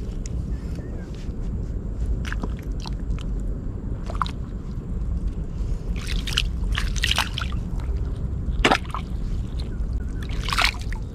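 A hand sloshing and squelching in the muddy water of a riverbank eel hole, scooping out mud, with several short wet splashes in the middle and near the end over a steady low rumble.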